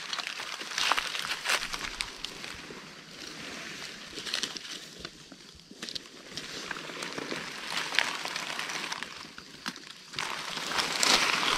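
Dry leaf litter rustling and crackling as it is disturbed, with scattered small snaps, and a louder stretch of rustling near the end.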